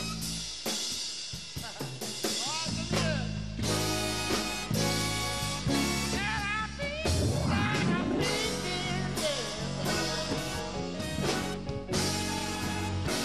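Big band playing a slow jazz-blues number live: drum kit with cymbals, horn section and keyboard. A lead line bends up and down in pitch over the band near the middle.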